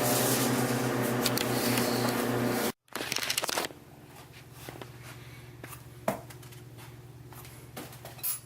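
A loud steady electric hum that cuts off abruptly a little under three seconds in, followed by a short burst of noise and then faint hum with scattered light clicks and rustling.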